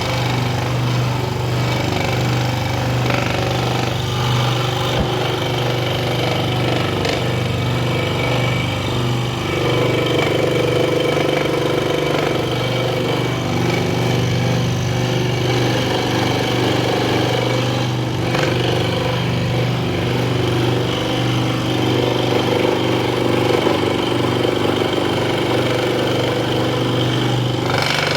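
Proxxon scroll saw running steadily, its reciprocating blade cutting through wood.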